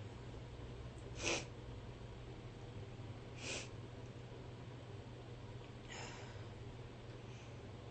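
A person's short, sharp breaths through the nose: three quick sniffs about two seconds apart, the first loudest and the last faint.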